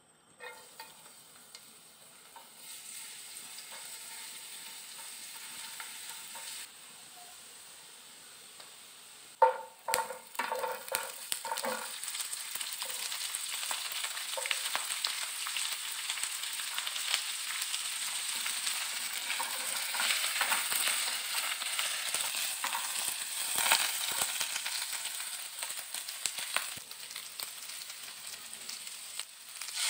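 Minced garlic sizzling in hot oil in a nonstick pan. About ten seconds in, a burst of knocks and clatter as mixed vegetables (broccoli, carrot, baby corn, shiitake mushroom) drop into the pan. Then a louder, steady frying sizzle with scattered scrapes and clicks of stir-frying.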